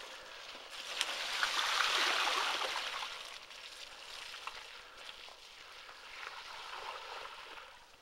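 Mountain bike tyres hissing and splashing through standing water on a flooded track, swelling about a second in and again near the end.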